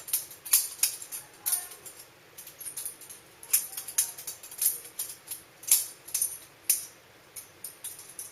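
Balisong (butterfly knife) being flipped through tricks: its metal handles clack against the blade's tang and each other in quick, irregular runs of sharp metallic clicks with brief pauses between them.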